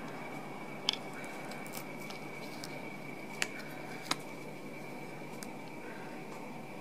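A frozen block being peeled out of a flexible silicone tray by hand: three small sharp clicks and crackles, one about a second in and two close together a few seconds later. Under them runs a steady hiss with a faint high whine.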